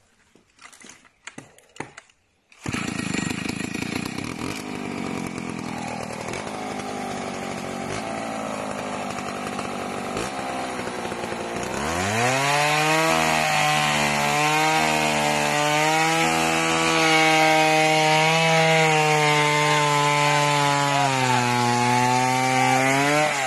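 Stihl two-stroke chainsaw. It comes in abruptly about three seconds in at a low running speed, then around the middle is opened up to full throttle and cuts into a felled tree trunk. Its high engine note wavers slightly under load and drops as the throttle is eased at the end.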